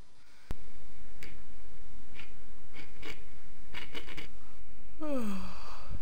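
A handful of short scratchy clicks and taps over a steady low hum. About five seconds in comes a brief pitched sound that falls in pitch.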